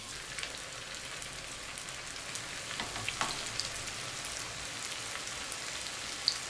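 Potato balls deep-frying in hot oil in a small pan: a steady sizzle with scattered crackles and pops. It grows a little livelier about halfway through, as more balls go into the oil from a slotted spoon.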